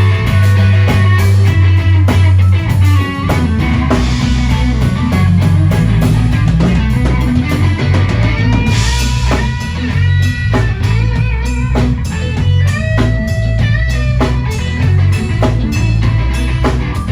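Live blues-rock band playing: electric guitar lead over bass and drum kit. From about halfway in, the guitar holds long notes with pitch bends.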